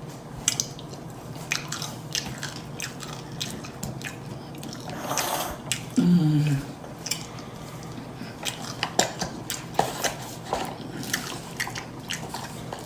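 A person chewing food close to the microphone with loud, wet lip-smacking and mouth clicks, and a short hum of enjoyment about six seconds in.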